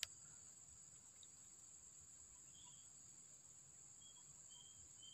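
Near silence over a faint, steady high-pitched insect drone, with one click at the start and a few faint short high chirps from about halfway through.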